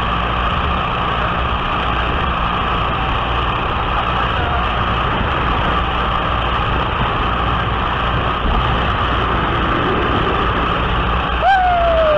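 Biplane engine and propeller running steadily in flight, with a constant rush of wind over the wing-mounted microphone. Near the end a short tone falls in pitch.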